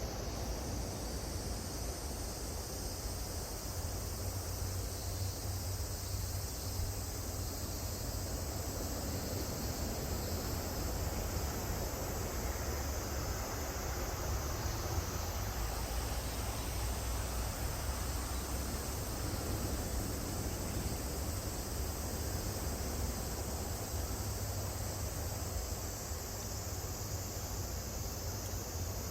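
A chorus of cicadas buzzing in one continuous high-pitched drone, slightly shifting in pitch about halfway through, over a steady low rumble.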